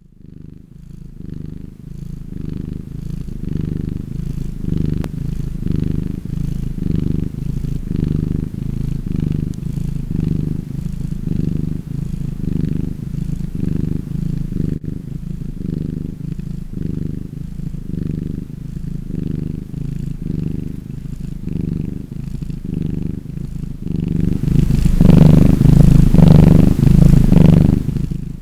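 Domestic cat purring steadily, swelling and easing about once a second with its breathing. It fades in at the start and grows louder and fuller for the last few seconds.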